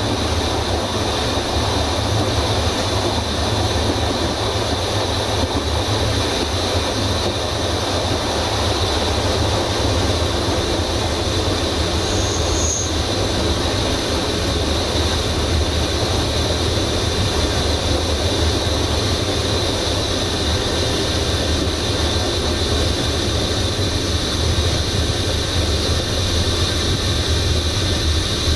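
Passenger train carriage rolling steadily along the track, with a continuous rumble of wheels on rail. A brief high squeal sounds about twelve seconds in.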